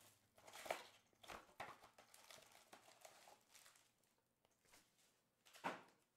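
Faint crinkling and scraping as a 2022-23 Panini Select basketball hobby box is opened by hand and its foil card packs are slid out, with a sharper rustle about a second in and another near the end.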